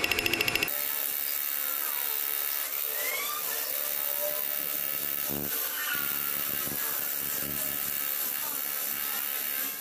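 Manual metal lathe turning a metal workpiece: the cut goes from a rapid pulsing chatter to a steady high hiss about a second in, with faint short squeals as chips curl off.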